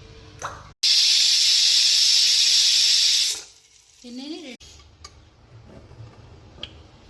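Cooking pot hissing loudly and steadily, starting abruptly about a second in and stopping after about two and a half seconds. It is followed by a short pitched sound that bends up and down, like a brief voice.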